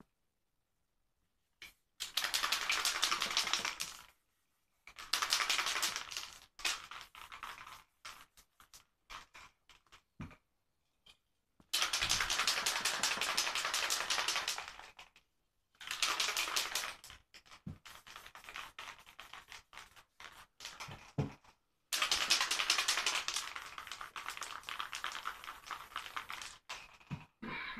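Aerosol spray paint can spraying in about five hissing bursts of one to three seconds, with short clicks and rattles in the gaps between them.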